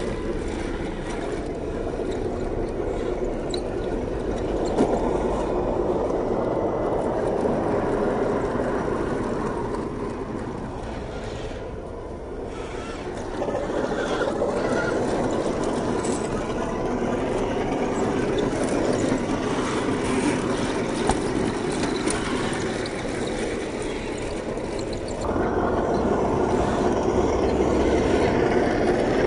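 HG P802 8x8 RC truck's 550 brushed electric motor and gear drive running as it crawls over rocks and dirt. The sound shifts in level where the shots change, dipping around 12 seconds in and getting louder about 25 seconds in.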